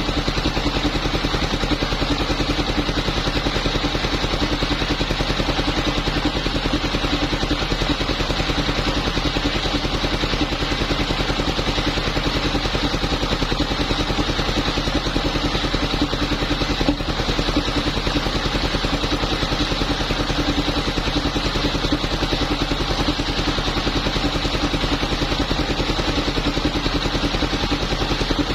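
Engine-driven wood saw running steadily at an even engine speed, as it cuts timber.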